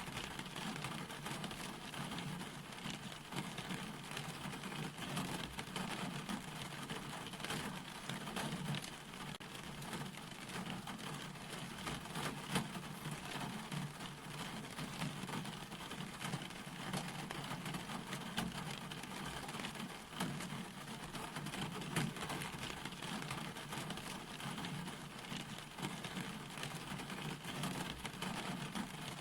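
Steady rain falling, with many individual drops striking a surface.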